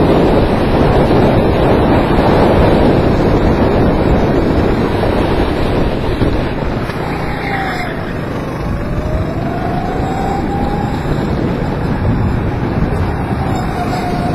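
Go-kart engine running at speed, heavily buffeted by wind on the microphone. About seven seconds in the engine note drops, then climbs steadily as the kart accelerates again, with another rise near the end.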